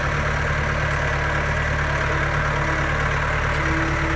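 Forklift engine running steadily at low revs.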